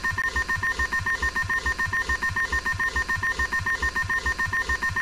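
Mobile phone alarm going off: a rapid, repeating electronic beep on two steady pitches, about four pulses a second, with an even low pulsing beneath it.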